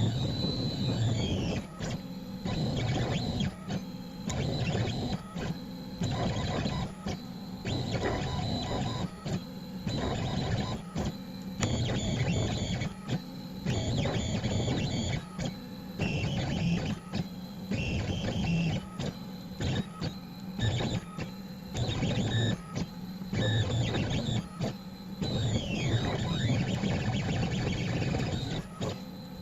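Onefinity CNC router's stepper motors whirring in short stop-start moves as its MC Etcher diamond drag tool etches acrylic, with the pitch sweeping up and down near the start and again near the end.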